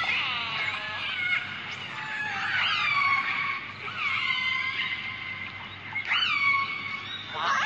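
Recorded whale calls: a series of high, whistle-like calls with overtones, many sliding down in pitch, arriving every second or two and sometimes overlapping.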